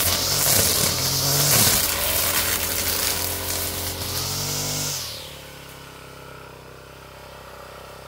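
Petrol brush cutter running at high revs with a hissing whine as it clears weeds, its pitch rising and falling. About five seconds in the throttle is released and the engine drops to a steady idle.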